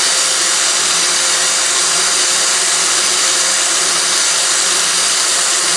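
Electric drill running steadily, its bit boring the threads out of the slide-pin hole in a rear brake caliper to leave the hole smooth.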